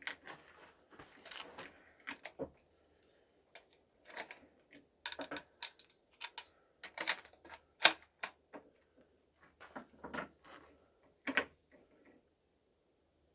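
Irregular sharp clicks and clacks of a .45-70 rifle's action being handled and worked, with the loudest clack about eight seconds in.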